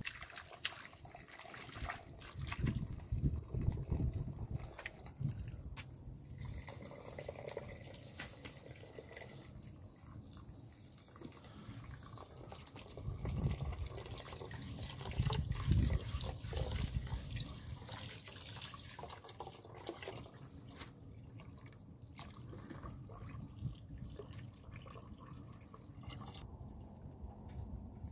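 Water trickling from the small tap of a plastic water container into a bowl and a pot, with splashing as greens and rice are rinsed by hand. The splashing swells louder a few seconds in and again about halfway through.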